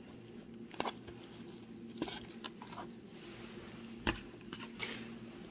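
Light rustling and crackling of a garment and its packaging being handled, with scattered sharp crackles, the loudest about four seconds in, over a faint steady hum.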